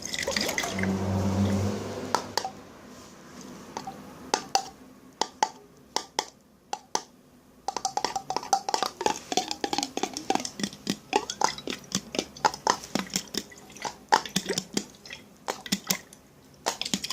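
Close-miked liquid sounds in small containers. A short pour or splash runs for about the first two seconds, then come many small drips, sloshes and clicks against the container.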